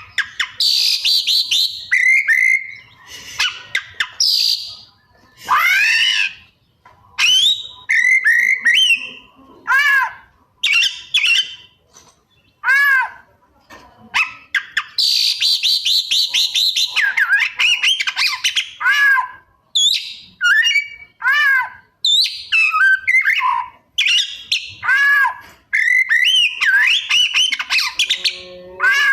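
Oriental magpie-robin (kacer) singing a long, varied song of loud whistled notes, chirps and fast trills, with short pauses between phrases. Its song is full of 'isian', calls copied from other birds.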